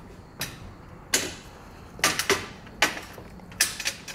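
Westin molded running board knocking against its mounting brackets as it is set into position, about six sharp clunks spread over four seconds.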